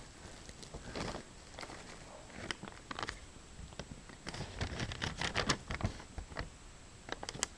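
Paper and packaging rustling, with scattered light clicks and taps, as a receipt is pulled out of a shipping package.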